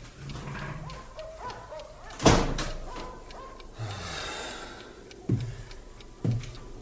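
A door shutting with a heavy thud about two seconds in, then a clock ticking about once a second near the end.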